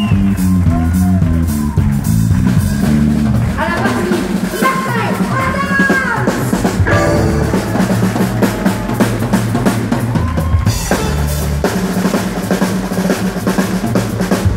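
Live country band playing, led by an electric bass moving from note to note and a drum kit keeping a steady beat.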